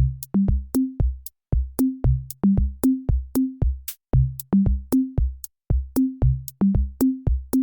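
Electronic intro music: a drum-machine beat of short, punchy bass and synth notes stepping up in pitch in a repeating pattern. It starts abruptly out of silence.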